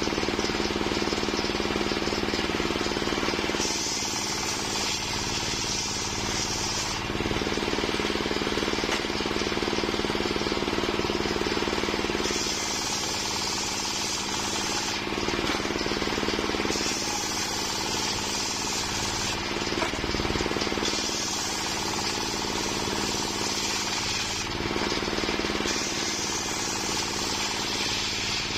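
Engine-driven homemade circular saw running steadily while its blade rips waru wood. A high cutting whine comes and goes every few seconds as the blade passes through the log and then spins free between cuts.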